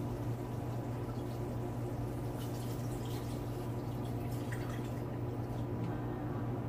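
Coconut milk poured from a can and a glass jug into a pan of simmering stew, with faint drips and splashes around the middle. A steady low hum runs underneath.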